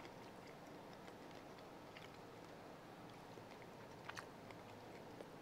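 Near silence: faint chewing of a buttered shrimp, with a few small clicks about two seconds in and again about four seconds in.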